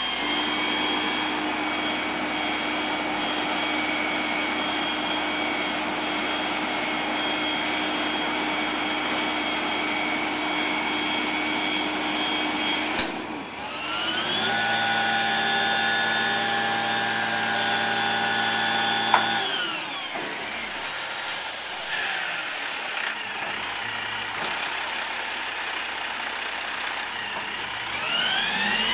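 A 2005 Peterbilt 320 garbage truck with an Amrep front-loader body, its diesel engine held at high revs to drive the hydraulics while the front arms lift a bin over the cab, with a steady high whine over the engine. The sound breaks off about halfway through and resumes at a different pitch, a single sharp knock comes about two-thirds of the way in as the revs drop back, and the revs rise again near the end.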